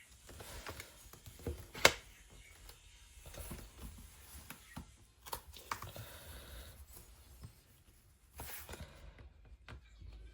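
Small clicks and scraping from tools working at a tablet's glued screen edge as it is pried open, with one sharp click about two seconds in and a few fainter clicks later.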